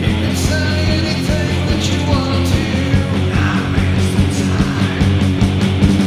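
Background rock music with a steady drum beat.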